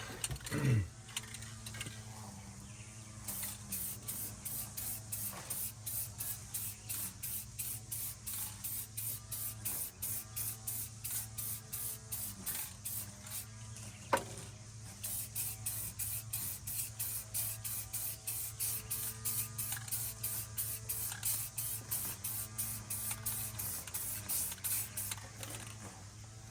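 Aerosol spray-paint can hissing in short, rapid, evenly spaced bursts, about two to three a second, with a pause and a single sharp click about halfway through, over a steady low hum.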